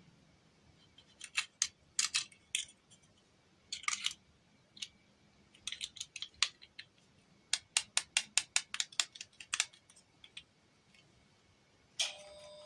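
Sharp clicks and snips in irregular clusters, including a fast run of about eight in a row past the middle. A ringing tone with several steady pitches starts near the end.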